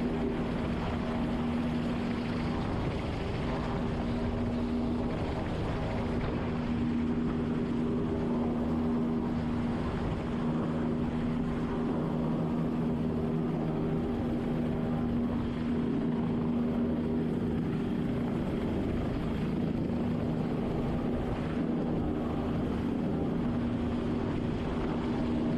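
Helicopter hovering close overhead: steady rotor and engine noise with a constant low hum.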